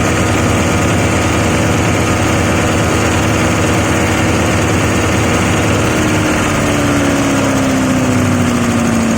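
Rice husk grinding machine running with a steady mechanical hum. Over the last three seconds its tone drops gradually in pitch as the machine slows.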